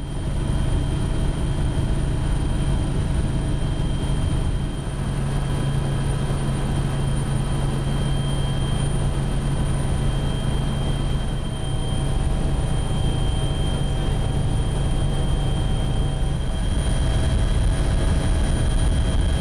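Steady drone of an aircraft heard from inside its cabin, a constant low hum with a faint high whine over it.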